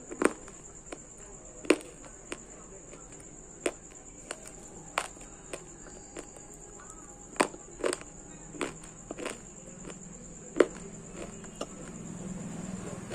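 Crisp bites and chewing of dry multani mitti (Fuller's earth clay) chunks: sharp, separate crunches at irregular intervals, about one a second. A faint steady high-pitched whine runs underneath.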